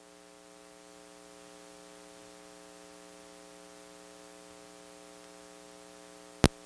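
Steady electrical hum and hiss from the stage sound system while no microphone is in use, with a single sharp click near the end.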